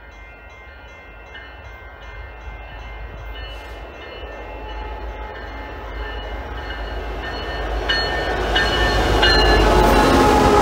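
Freight train led by an EMD SD70ACu diesel locomotive approaching, its low engine rumble growing steadily louder, with the horn sounding in several blasts, three short ones close together near the end.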